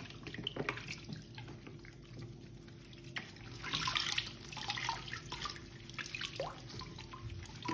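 Hands rubbing and squeezing a cloth in a plastic bucket of water to lather a bar of white soap: water sloshing and dripping back into the bucket, louder about four seconds in.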